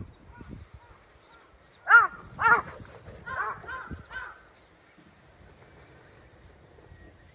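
A crow cawing: two loud caws about half a second apart, then a quicker run of softer caws. Faint high chirps of small birds sound in the background.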